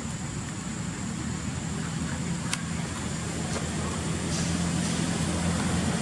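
Steady low rumble with a thin high whine above it, and a single sharp click about two and a half seconds in.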